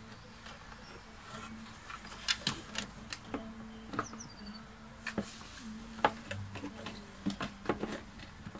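Scattered clicks and light knocks of hands working the wiring and red plastic housing parts of an Eta Neptun vacuum cleaner, over a faint steady hum.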